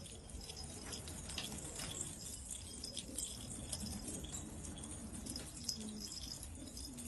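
Domestic pigeons, with light clicking and jingling throughout and a few low cooing notes in the second half.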